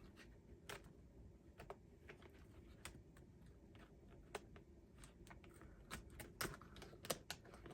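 Faint, irregular light clicks and taps from a Lenovo ThinkPad T470 laptop keyboard being handled and pressed down into place, roughly one click a second.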